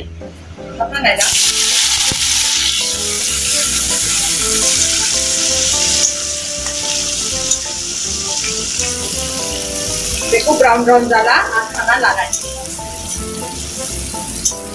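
Sliced onions and green chillies dropped into hot oil in an aluminium kadai, sizzling loudly from about a second in as they fry and are stirred with a ladle.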